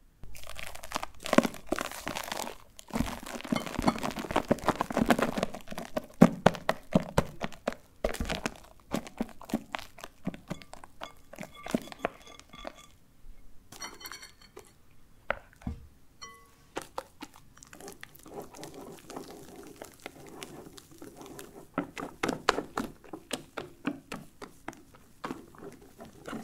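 Wire whisk folding stiff egg-white meringue into batter in a glass bowl: a continuous run of soft, wet strokes and knocks, with a few brief ringing clinks midway.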